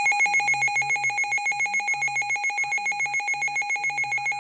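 Weather radio alert alarm: a rapidly pulsing electronic beep, about eight pulses a second, signalling an incoming severe thunderstorm warning.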